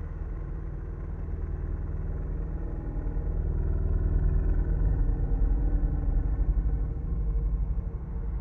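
Dark ambient drone: a deep, steady rumble with faint sustained tones above it, swelling louder about four seconds in.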